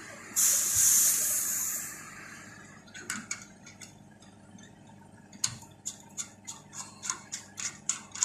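A short, loud hiss of refrigerant gas escaping at the brass valve-core tool on the service port, fading after about two seconds. Then a run of sharp metallic clicks, coming several a second near the end, as the tool's knurled coupling is unscrewed from the pressurised port.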